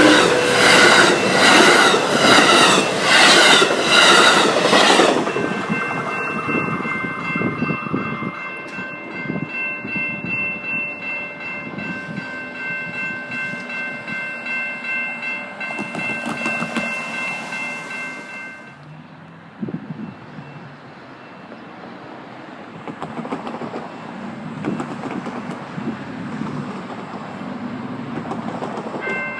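A train passing close by, loud with a rhythmic clatter of wheels over the rails for about the first five seconds, then fading away under a steady high-pitched ringing that stops about 19 seconds in. A fainter rumble follows, and the ringing comes back near the end.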